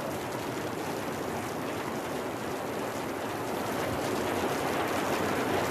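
A steady rushing noise that slowly grows louder toward the end.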